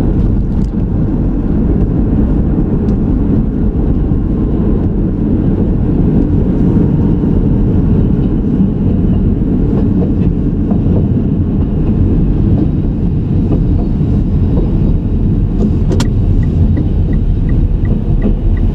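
Car driving, its steady low road and engine rumble heard inside the cabin. A click comes near the end, followed by the regular ticking of the turn-signal indicator, about three ticks a second.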